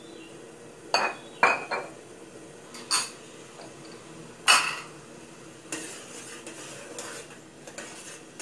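Metal ladle knocking and clinking against the side of an enamel soup pot while seasonings are stirred into the broth: a few sharp clinks in the first half, then softer taps and scrapes.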